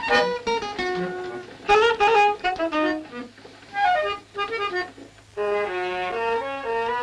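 Instrumental film score: short plucked string notes, then from about five seconds in a melody of held, sustained notes.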